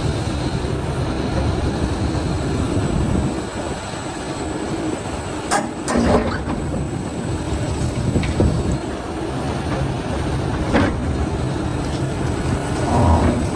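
Excavator's diesel engine running steadily while it tears into a house, with a few sharp cracks and crashes of breaking building material, the loudest about six seconds in and another near eleven seconds.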